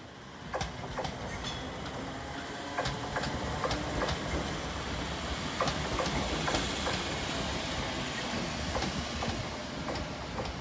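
ScotRail electric multiple unit passing close by, its running noise growing over the first second, with wheels clicking irregularly over rail joints and pointwork. The train is running empty into a siding after terminating.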